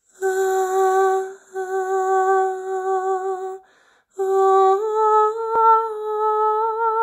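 A woman humming a slow tune in long held, gently wavering notes. She breaks off for a breath about halfway through, and the notes sit higher after it.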